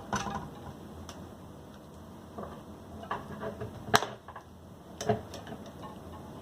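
A bike tire lever clicking and knocking against the wheel's rim and spokes as it is levered in between tyre and rim and hooked over a spoke. The clicks are scattered and irregular, the sharpest about four seconds in.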